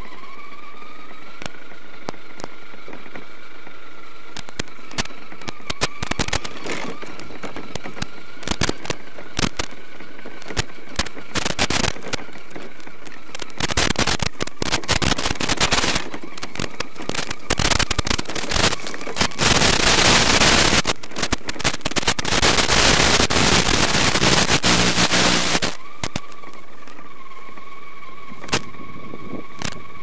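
Axial SCX10 Deadbolt RC crawler's electric drive running with a steady whine, picked up by its onboard microphone and sent over a 5.8 GHz FPV link, with scattered clicks. From about 13 s to 26 s it is drowned by loud crackling static as the video link breaks up.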